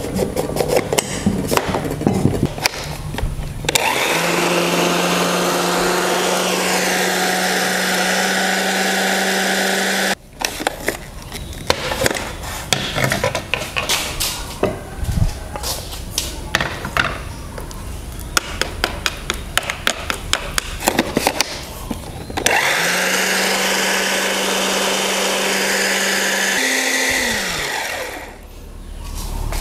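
Small electric food chopper running in two bursts of several seconds, blending cooked chicken, rice and egg; the second run ends about three seconds before the end with a short rise and fall in pitch as the motor stops. Between the runs come many clicks and knocks of plastic being handled.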